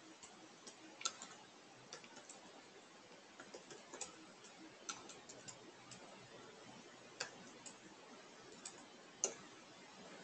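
Computer keyboard keystrokes, faint and irregular: single clicks and short runs of a few keys with pauses between, as a command is typed with tab completion.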